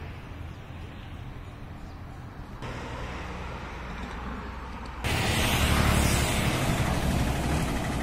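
Outdoor background noise: a steady low rumble that steps up a little in the middle and then turns suddenly much louder and hissier about five seconds in.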